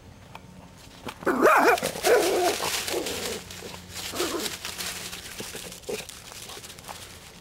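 Dachshund barking in a quick string of loud yaps starting about a second in, then a few fainter barks, with dry leaf litter crackling as it runs.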